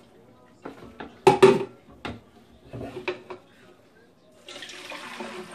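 A plastic pitcher and a mesh strainer clatter and knock a few times as they are handled, the loudest knock about a second and a half in. From about four and a half seconds, a steady rush of apple-beet juice being poured through the strainer into a pitcher.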